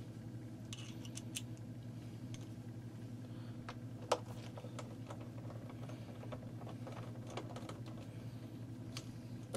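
Small hex-bit screwdriver backing out screws from a metal bottom panel: a patter of small clicks and scrapes, with one sharper click about four seconds in.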